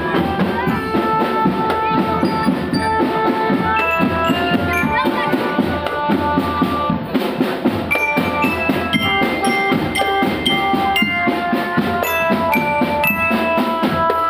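A children's marching drum band playing: snare and bass drums beat a steady pattern under a melody of changing notes from bell lyres struck with mallets.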